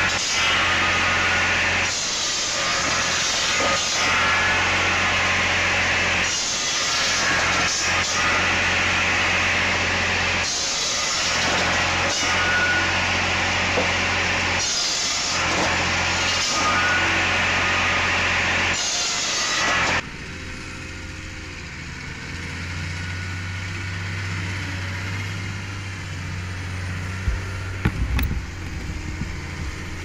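Firewood saw with a rotating paddle feed wheel running, its blade cutting through pieces of split wood about every two seconds. About two-thirds through the sound drops suddenly to a quieter, steady machine hum, with a few knocks near the end.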